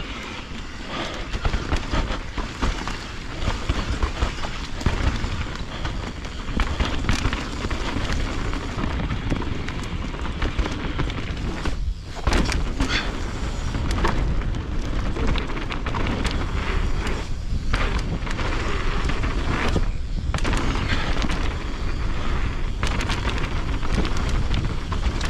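Mountain bike ridden over a rough dirt trail, heard from a camera on the rider or bike: a continuous rumble full of sharp rattles and knocks from the bike over the ground, with a few brief lulls.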